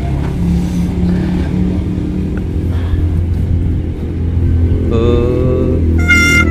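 Truck engine running steadily with a low hum. Near the end a rising tone and then music start over it.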